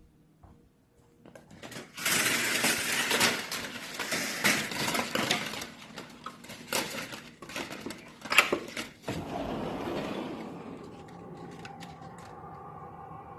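A loud clattering, rustling noise with sharp clicks and knocks for about seven seconds. It is followed by a steady distant howling drone of several held pitches, eerie and like something between howling wind and screaming, whose source is unexplained.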